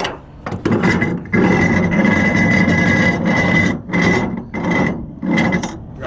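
Flatbed trailer strap winch being cranked tight with a winch bar, the strap drawing down hard on a load of lumber: one long pull of about two seconds, then three shorter pulls.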